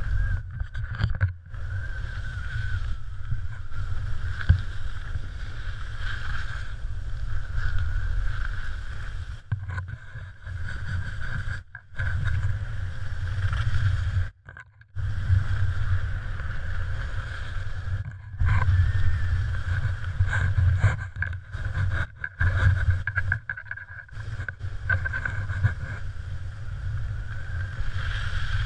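Wind rushing over a GoPro Hero3 camera during a ski run: a steady low rumble with a hiss above it, dropping out briefly several times.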